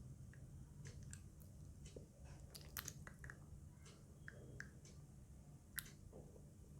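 Near silence with faint, scattered wet mouth clicks and smacks as the tongue is pushed far out and stretched toward the chin and nose.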